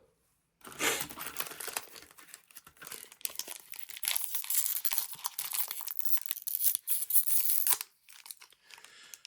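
Foil wrapper of a Japanese Pokémon VSTAR Universe booster pack being torn open and crinkled by hand: a crisp tearing and crackling that stops shortly before the end.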